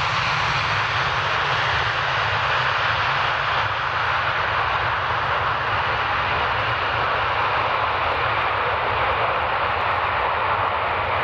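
Boeing 757-200 freighter's Rolls-Royce RB211 jet engines during the landing rollout: a steady, loud rushing noise with a low rumble beneath.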